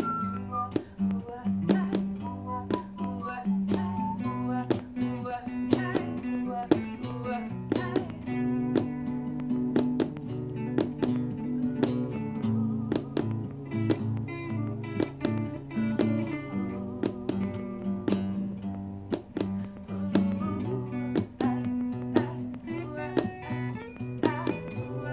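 Instrumental music: an electric guitar playing picked notes and strummed chords, with low notes held underneath.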